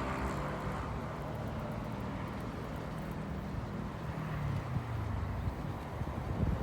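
A distant engine drones steadily under a noisy outdoor hiss.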